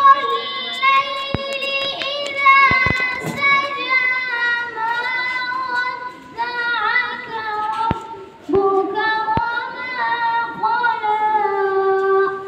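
A boy singing solo into a handheld microphone, holding long notes with no instrumental accompaniment, and a few sharp clicks in between. The singing stops near the end.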